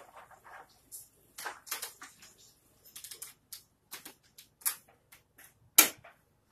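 Irregular plastic clicks and snaps of Snap Circuits parts being pressed onto and pulled off the plastic base grid as a momentary switch is fitted, with one loud, sharp snap near the end.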